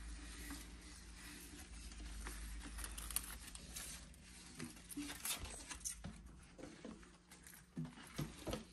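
Faint rustles and light taps from handling the camera in among houseplant leaves, over a low steady room hum.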